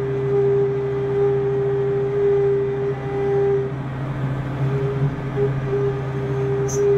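CNC machining centre running: a steady machine hum with a held mid-pitched tone that breaks up briefly about two thirds of the way through, and a short high tick near the end.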